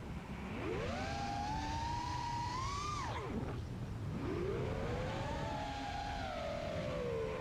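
Brushless motors and 5-inch propellers of an FPV quadcopter whining in flight. The pitch climbs as the throttle is pushed up, drops away sharply about three seconds in, then climbs again and settles to a steadier, lower whine near the end.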